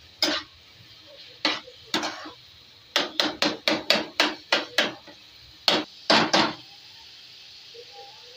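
A metal spatula knocking and scraping against a frying pan while a thick chicken liver masala is stir-fried (bhunai). There are a few single knocks, then a quick run of about four strokes a second, and three more strokes. After that only a faint steady sizzle of the masala frying in oil remains.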